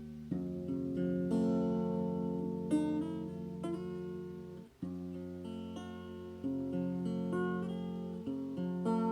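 Acoustic guitar in an open tuning, played as ringing chords and picked notes. The strings are stopped briefly about halfway through, then the playing resumes.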